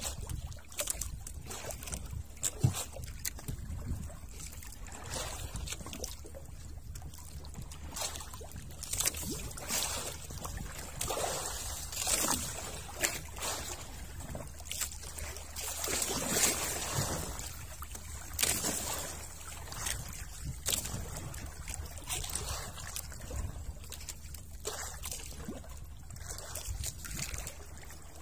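Water lapping and sloshing against the hull of a small boat in irregular swells, with a few light knocks, over a steady low rumble.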